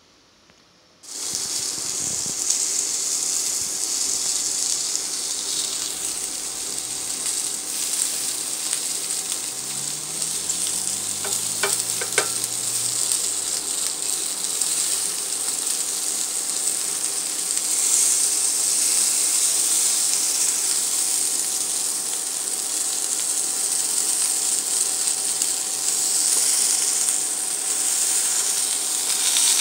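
Asparagus, carrots and mushrooms sizzling in a hot stainless steel frying pan, a steady hiss that starts suddenly about a second in. A few light clicks a little before the middle.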